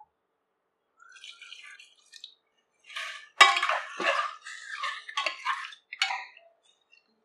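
Wooden spatula stirring and turning raw chicken pieces in oil inside a stainless steel pressure cooker, knocking and scraping against the pot. The clatter is irregular, starting about three seconds in with a sharp knock and carrying on for about three seconds.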